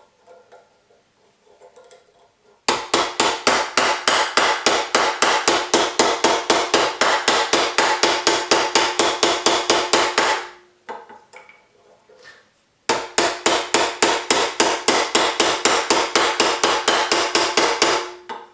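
A white plastic-headed forming hammer beats rapidly and evenly on a reticulated silver cuff blank held over a steel anticlastic stake, about five blows a second, with a ringing tone under the strikes. The hammering comes in two runs: one of about eight seconds starting a few seconds in, then a short pause with light clatter, then a second run of about five seconds.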